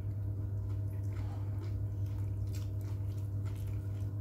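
A Pomeranian dog chewing and mouthing bits of mortadella taken from a hand, with soft wet smacks and clicks, over a steady low electrical hum.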